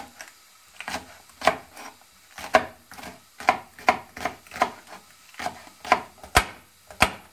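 Kitchen knife chopping small green peppers on a wooden cutting board: uneven knocks about two a second, with two sharper, louder strikes near the end.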